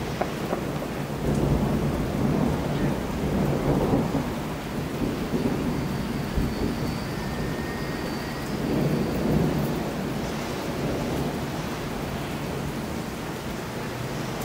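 Rolling thunder rumbling over steady rain, swelling about a second in and again about two-thirds of the way through.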